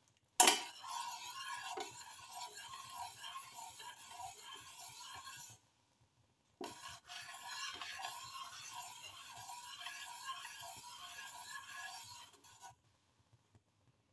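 Metal spoon stirring tea in a pan, scraping around the bottom in a steady repeating rhythm to dissolve the sugar. It comes in two spells, each starting with a sharp clink, with a pause of about a second between them.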